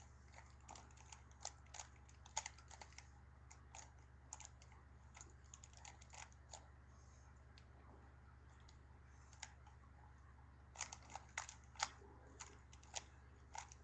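Rubik's Cube being turned by hand during a solve: an irregular run of small plastic clicks, with a quick flurry of turns near the end. A low steady hum runs underneath.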